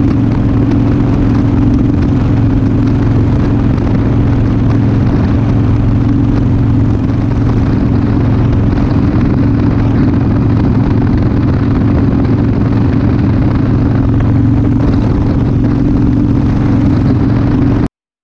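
Cruiser motorcycle engine running steadily while riding along at speed, heard from the rider's seat, with no marked revving; the sound cuts off suddenly near the end.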